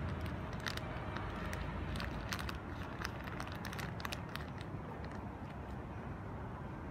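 Scattered crisp clicks and crunches of a kitten chewing dry cat food, coming thick in the first few seconds and then thinning out, over a steady low background rumble.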